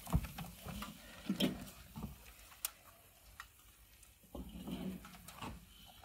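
Scattered light knocks and clatters of a Weber charcoal kettle grill being opened up and its parts handled to get at the spent charcoal.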